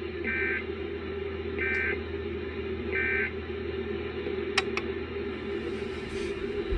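Emergency Alert System end-of-message signal: three short two-tone digital data bursts, each about a third of a second long and about 1.3 s apart, over a steady hum. Two sharp clicks follow.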